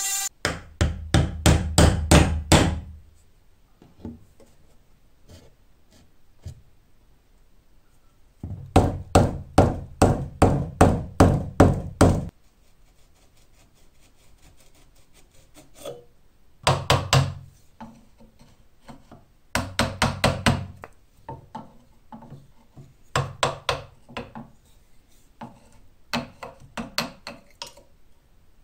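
Hammer blows on a steel punch in several runs of quick strikes, about three a second, with pauses between. They are knocking the old scythe's wooden grip and metal ferrule apart from the tang.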